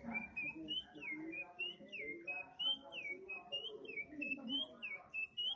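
Oriental magpie-robin (kacer) singing a fast, unbroken run of short whistled notes, each rising and then dropping sharply.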